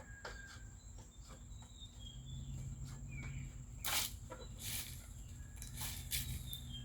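Faint outdoor ambience after the chainsaw has stopped: a steady high-pitched insect drone, short bird chirps, and a few brief rustles or knocks, with a low hum coming in about two seconds in.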